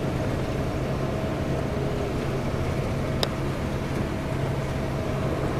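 Coach bus cabin on the move: a steady low drone of engine and road noise, with one sharp click about three seconds in.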